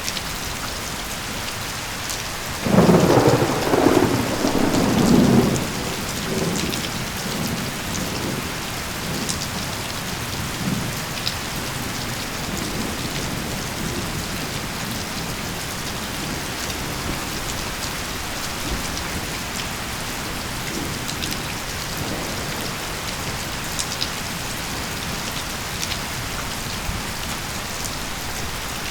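Steady rain falling, with a loud roll of thunder starting between two and three seconds in, lasting about three seconds and dying away in fainter rumbles.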